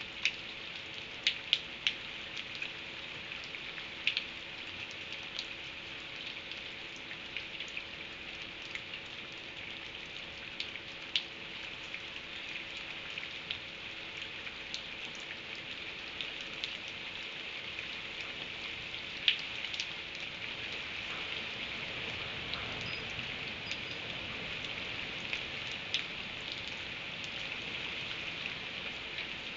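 Steady rain hissing, with scattered sharp ticks of drops striking a hard surface. A low gust of wind swells up about two-thirds of the way through.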